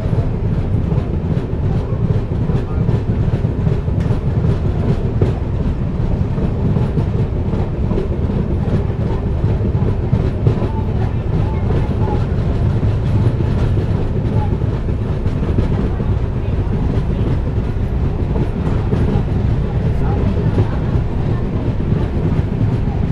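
Passenger train coach running along the track, heard from its open window: a steady rumble and clatter of the wheels on the rails, with the rush of air past the coach.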